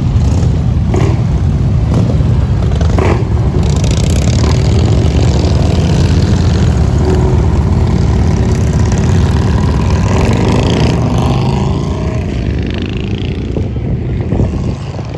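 Heavy truck running loud as it drives close past, a deep steady rumble that starts to fade after about twelve seconds.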